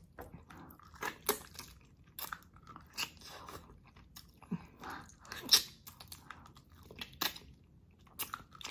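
Close-up eating sounds of someone chewing and biting into a boiled catfish head, with sharp wet mouth clicks at irregular intervals of about a second.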